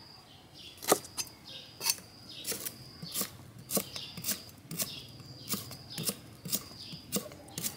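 Knife chopping on a thick wooden chopping block: a string of sharp, uneven knocks, about two a second.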